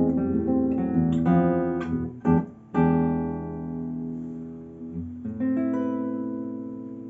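Nylon-string classical guitar played fingerstyle: quick notes, a sharp percussive knock about two seconds in, then chords about three and five seconds in that are left to ring and fade.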